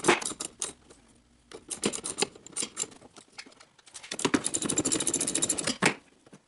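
Socket ratchet wrench clicking in fast rapid runs as a wiper-arm bolt is turned, sped up, with scattered tool clicks and knocks in the first few seconds.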